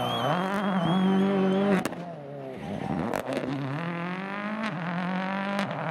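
Rally car engine accelerating hard, its pitch climbing through each gear and dropping back at every upshift. It breaks off about two seconds in and comes back quieter and rising again, with a few sharp cracks.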